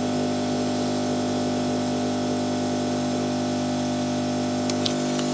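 Steady electrical hum made of several even, unchanging tones, with a few faint clicks near the end.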